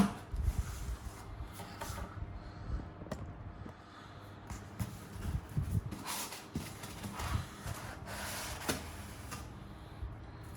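Collectible-figure packaging being handled: a sharp knock at the start, then scattered soft bumps and short rustles of cardboard and plastic.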